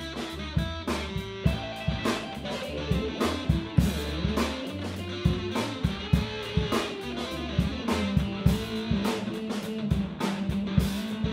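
Instrumental background music: guitar over a drum kit keeping a steady beat.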